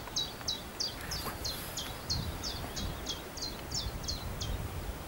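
A songbird singing a long run of repeated, down-slurred high notes, about three a second, that stops shortly before the end. A low wind rumble lies underneath.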